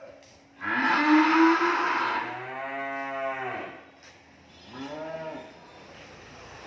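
Cattle lowing: one long, loud moo starting about half a second in, then a shorter moo around five seconds in.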